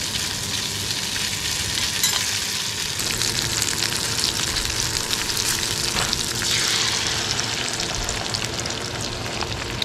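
Sausage pieces sizzling in a hot cast-iron skillet as they are stirred, with a few light taps of the utensil on the pan. About two-thirds of the way through the sizzle swells as beaten egg is poured into the hot fat.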